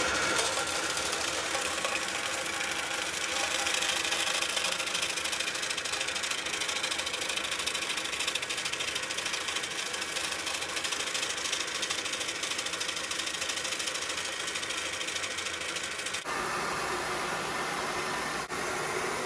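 Heavytech 6N40 mini rice mill with de-stoner and vibrating grader, belt-driven by a 3 hp motor, running through its milling demo: a steady mechanical hum with a fast, even rattle. The sound changes abruptly about sixteen seconds in.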